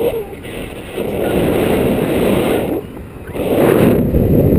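Wind buffeting the microphone of a pole-mounted action camera in paraglider flight: a loud, rumbling rush that drops away briefly twice.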